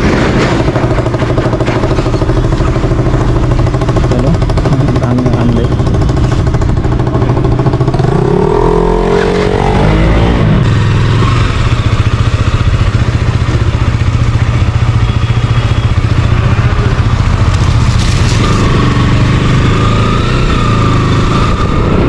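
KTM RC motorcycle's single-cylinder engine running steadily, rising in pitch once about eight seconds in as it is revved. Later the bike rides off slowly.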